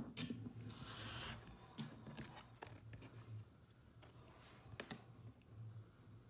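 A rotary cutter rolls through a stack of fabric along an acrylic quilting ruler, a short faint rasp about a second in, while half an inch is trimmed off the edges. A few light clicks and taps follow as the plastic ruler is lifted and shifted on the cutting mat.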